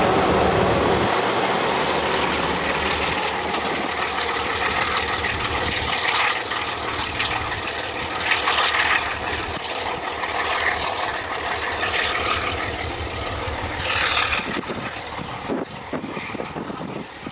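ALCo RSD16 diesel locomotive's V16 engine running steadily as the locomotive pushes at the rear of a freight train and draws away, the sound fading over the last few seconds.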